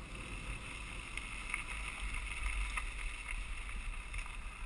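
Mountain bike being ridden along a trail, heard from a bike or helmet camera: a steady rush of wind on the microphone over a low rumble, with a few light ticks and rattles.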